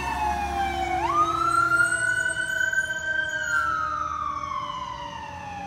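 Fire engine siren wailing, its pitch falling slowly, sweeping back up about a second in, then falling again, fading as the truck drives away. A low engine rumble runs underneath and fades with it.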